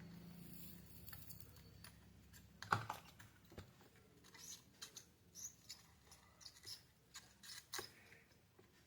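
Faint clicks and taps of small hand tools on a refrigerator control circuit board while its resonator is being removed, with one louder knock about three seconds in.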